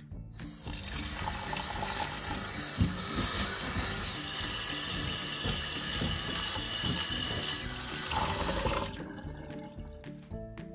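Kitchen tap running into a stainless steel sink, the water pouring over red lentils in a mesh strainer as a hand stirs them to rinse them. The water cuts off about nine seconds in.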